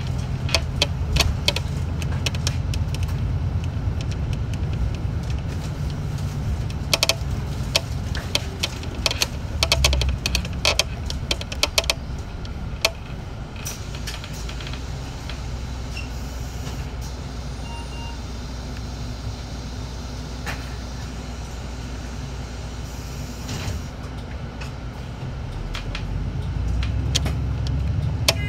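A city bus driving, heard from inside: a steady low drone with many sharp rattles and clicks through the first half, quieter in the middle, the drone growing louder again near the end.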